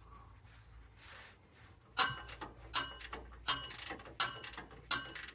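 Hand ratchet tightening a nut on a car's underbody brace: from about two seconds in, a sharp metallic click with a short ring comes every ¾ second or so as the handle is worked back and forth.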